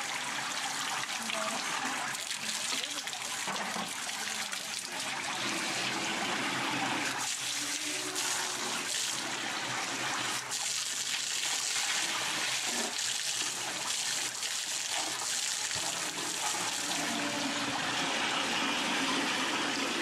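Water running from a wall tap and splashing as a plastic bucket and then a plastic jug are rinsed under it.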